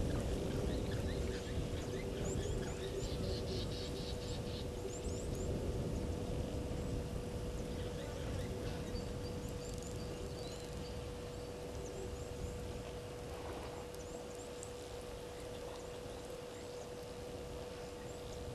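Outdoor bush ambience at a waterhole: small birds giving short, high chirps, with a brief rapid trill about three seconds in, over a steady low noise and a constant faint hum.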